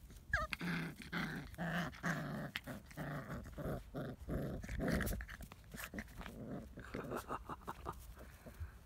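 Month-old Labrador retriever puppies growling and yapping in rough play-fighting, with a short squeal at the start. The growls come in quick short bursts for about five seconds, then thin out into scattered yips.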